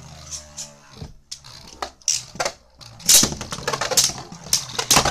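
Two Beyblade Burst spinning tops battling in a plastic stadium: a steady whirring hum for about the first second, then a run of sharp plastic clacks and rattles as they collide.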